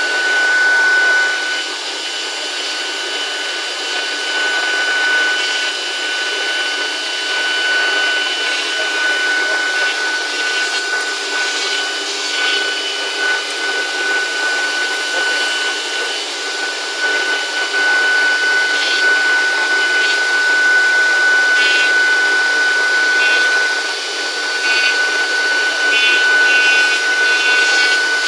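Woodworking CNC router running, its spindle giving a steady high whine while the cutter routes grooves into a door panel, over a continuous rough cutting noise.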